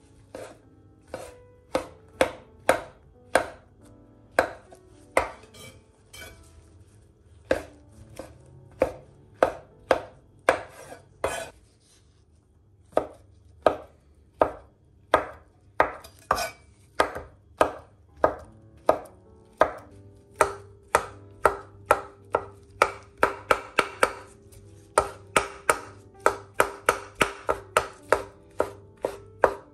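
Chef's knife slicing mushrooms on a bamboo cutting board, each cut ending in a sharp tap of the blade on the wood. The cuts come unevenly about once or twice a second at first, pause briefly near the middle, then quicken to a faster, steadier rhythm in the second half.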